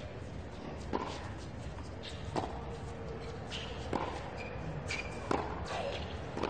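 Tennis rally on a hard court: a racket strikes the ball four times, about every one and a half seconds, the shots alternating between the two ends.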